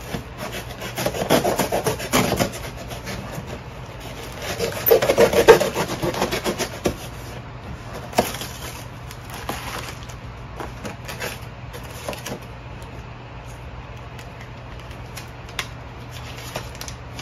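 A small knife slicing through packing tape and scraping along a cardboard shipping box, in two heavier stretches about a second in and around five seconds in, then lighter rustling and clicks of cardboard and paper being handled.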